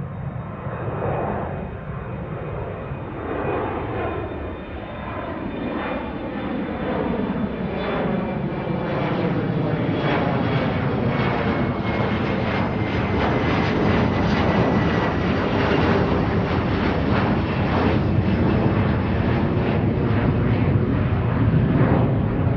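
Aircraft engine noise growing steadily louder as a plane approaches, with a faint high whine that slowly drops in pitch.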